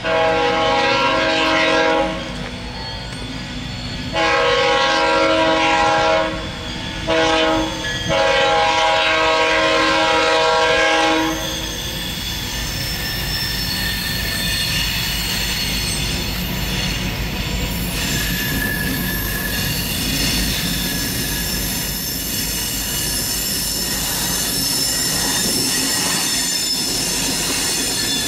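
Horn of a Canadian Pacific EMD SD40-2 locomotive blowing the grade-crossing signal: long, long, short, long. Afterwards the approaching ballast train's diesel engines and wheels rumble, growing louder until the lead locomotive passes near the end.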